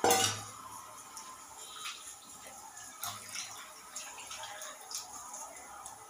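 A single sharp metallic clank of kitchen pots or utensils right at the start, ringing away within about half a second, then faint scattered ticks and clicks.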